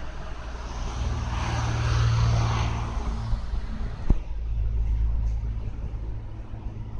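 A low outdoor rumble as a vehicle passes by, swelling and fading over a couple of seconds, followed by a single sharp thump about four seconds in.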